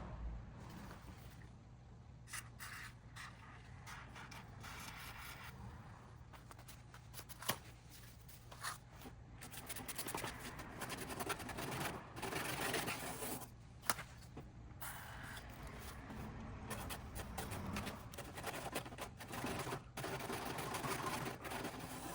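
Scraping and rubbing from parts being handled, with scattered clicks and knocks, over a low steady hum.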